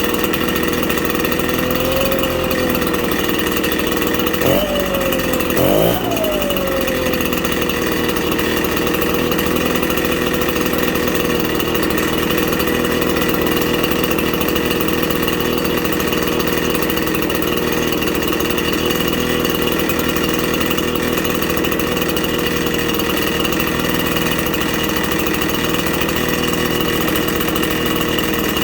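RedMax leaf blower's two-stroke engine running steadily at idle, with two quick blips of the throttle about four and a half and six seconds in, each rising in pitch and settling back down.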